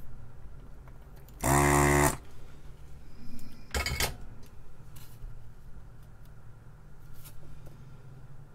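A handheld vacuum desoldering gun's pump runs once, for under a second, about a second and a half in, sucking solder from the joints of a wrongly fitted resistor on a circuit board. A few light clicks and taps follow as the board is handled.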